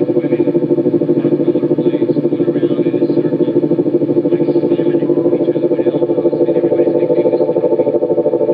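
Lo-fi electronic noise score: a dense low drone that pulses rapidly and evenly, with faint crackle of radio static on top.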